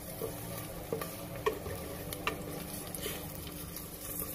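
Chopped garlic and ginger sizzling in a little oil in a wok-style frying pan, at the sauté stage before the garlic browns, with a steady hiss and a few light taps as they are stirred.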